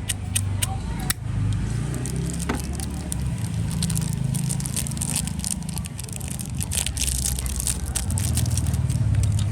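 Low steady rumble of traffic, with many small sharp clicks and scrapes from Zippo lighters being handled, thickest for a few seconds near the end.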